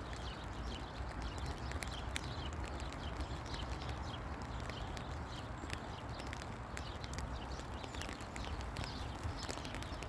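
Horse grazing: many short, crisp, irregular tearing and crunching sounds as it crops and chews grass, over a low steady rumble.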